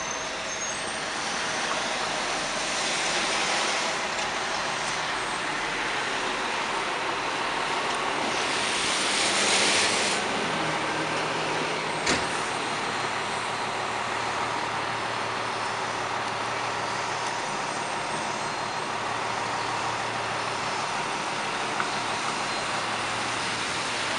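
Fire truck's diesel engine running, with passing traffic on a wet, snowy street. About eight seconds in comes a loud air-brake hiss lasting about two seconds, and a single sharp knock follows a couple of seconds later.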